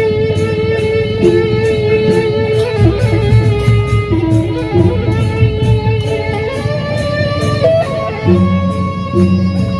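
Sasak gendang beleq ensemble playing: a bamboo suling flute carries the melody, holding one long note before it moves, over the big drums and an even beat of cymbal clashes.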